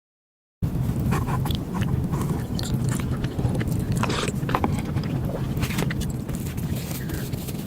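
Eating sounds: a person biting and chewing food, with many short crackly clicks over a steady low rumble. It starts suddenly about half a second in.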